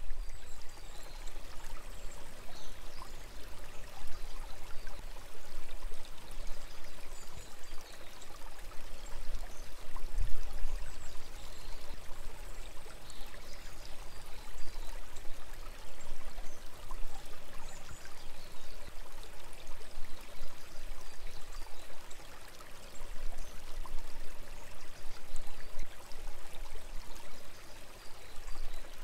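Small forest stream babbling and trickling steadily, with birds chirping faintly now and then.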